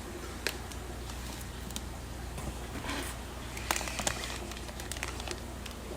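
Scattered light clicks and rustles of handling over a steady low hum, with a sharper click about half a second in and a cluster of clicks near the middle.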